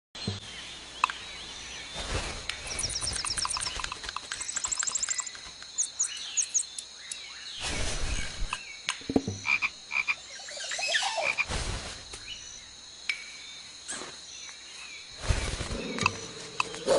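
Frogs croaking, over a steady high whine, with scattered clicks, quick trilling chirps and a few louder rushing swells.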